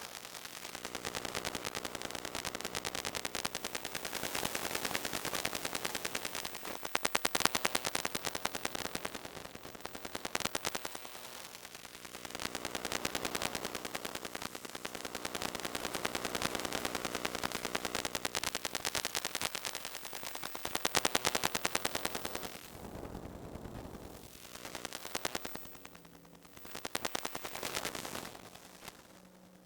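Electromagnetic emissions of a MacBook made audible: a dense, rapid crackle of clicks, at times with steady buzzing tones beneath, swelling and fading in level and dropping away near the end.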